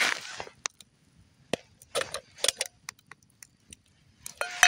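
Scattered sharp crackles and pops from a campfire and a pot of freshly popped popcorn. Near the end the metal bowl used as the pot's lid clinks and rings against the pot rim as it is lifted off.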